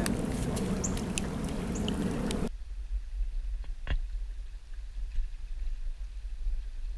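Rustling in a pile of wet sticks and dead leaves at the creek's edge, with small sharp clicks and the shallow creek flowing. After an abrupt cut about two and a half seconds in, it turns to a quieter low rumble with a faint trickle of water and a single click.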